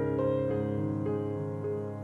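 Soft background piano music: slow, sustained notes coming in every half second or so.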